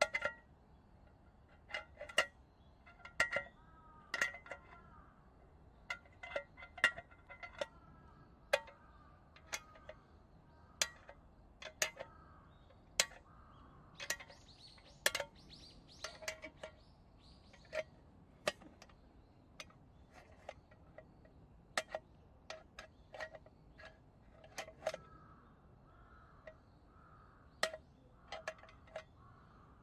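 Wire bail handle of a Field To Summit aluminium army mess tin clinking against its brass ear fittings and the pot body as the tin is turned in the hand: a string of irregular light metallic clinks, each ringing briefly.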